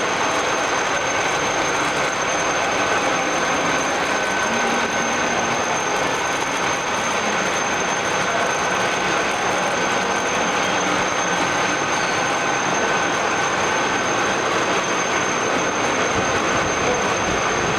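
All-geared radial drilling machine running: a steady mechanical whirr from its gear train, with a constant high-pitched whine over it.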